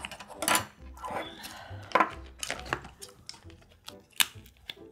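Close-miked eating sounds: wooden chopsticks clicking against dishes and chewing, in a run of sharp irregular clicks and knocks. Near the end come the clicks of snow crab shell being handled.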